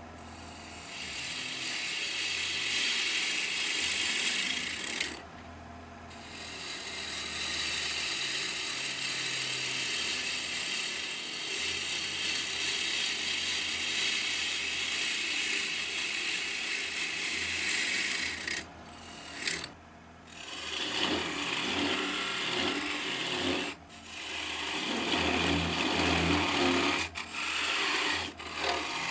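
Gouge cutting the outside of a spinning red oak blank on a wood lathe: a steady scraping hiss of shavings coming off over the lathe motor's hum, breaking off briefly a few times.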